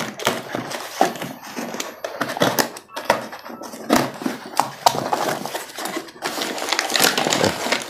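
Rustling of a small cardboard parts box and its packaging being opened and rummaged through by hand, with irregular clicks and knocks.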